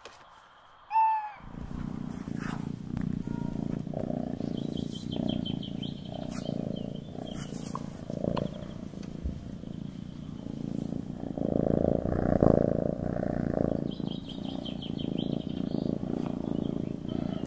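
A domestic cat meows once, about a second in, then purrs steadily and close up. A bird twitters faintly in the background, twice.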